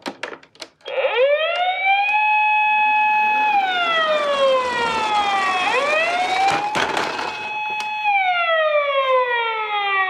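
Electronic siren of a toy Nissan Elgrand ambulance sounding through its small built-in speaker, after a few clicks at the start. It is a wail that rises, holds, falls, then rises, holds and falls again.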